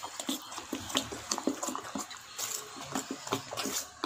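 Thick dosa batter with fried onion and carrot being mixed by hand in a steel bowl: wet, irregular sounds with many small clicks and slaps.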